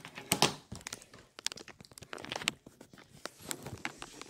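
Handling noise: irregular rustling, clicks and crunches as the recording phone is moved about.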